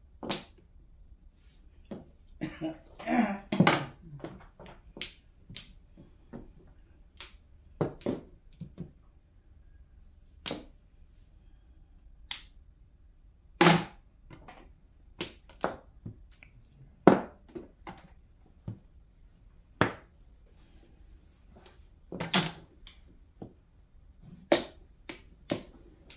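Mahjong tiles clacking as players discard onto the table and handle their tiles: sharp, irregular clacks every second or so, with a quick flurry of clacks about three seconds in and more near the end.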